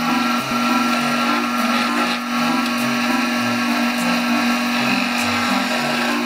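Wood lathe motor running with a steady hum while a turning chisel cuts a spinning branch-wood mallet blank between centres, giving a continuous hissing cutting noise.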